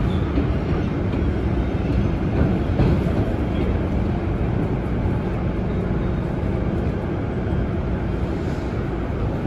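PATH PA-5 subway train running steadily at low speed along the station platform, heard from inside the car: a continuous low rumble of wheels and motors on the rails.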